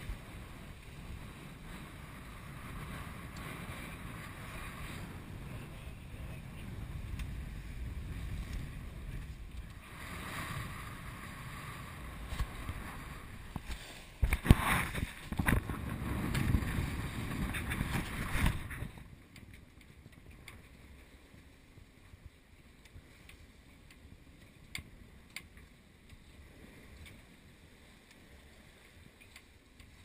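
Water rushing along the hull of an S&S 34 sailing yacht under way in open sea, with wind buffeting the microphone. It is loudest in a run of gusts and splashes past the middle, then about two-thirds of the way in drops sharply to a quieter, steady hiss with a few ticks.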